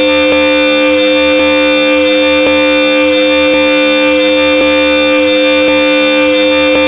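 Old Supertone car horn blowing one long, steady two-tone note without a break. A faint click recurs about once a second.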